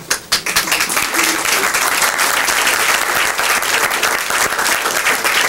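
Audience applauding, breaking out suddenly and continuing steadily.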